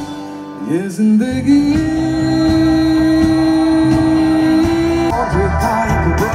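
Live band with a male lead vocalist singing a pop song; he holds one long note for a few seconds, then the drums and full band come in harder about five seconds in.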